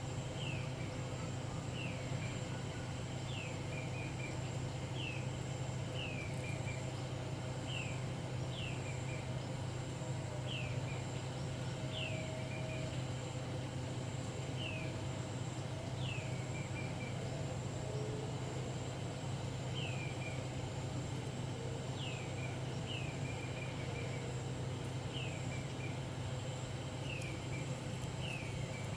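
A bird calling over and over, about once a second. Each call is a short downward-sliding note followed by two or three quick short notes, heard over a steady low hum.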